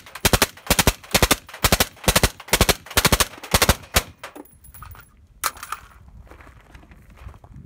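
A 10.3-inch AR-15 upper firing 5.56 M193 fully automatic through a Thunder Beast DSU suppressor, in rapid short bursts for about four seconds. This is a punishing firing schedule that heats the can. The firing then stops, and one metallic clack follows about a second and a half later.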